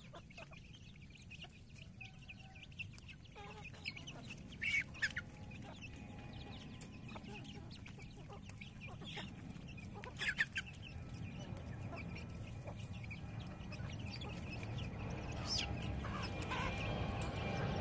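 Free-range village chickens clucking as they feed, with a few short louder calls, the loudest twice: about a quarter of the way in and again about halfway. A low rumble grows steadily louder toward the end.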